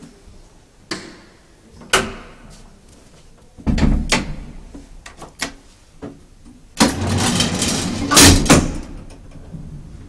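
A door being worked: a couple of sharp clicks, a heavy clunk about four seconds in, then a rattling slide of about two seconds that ends in loud bangs near the end.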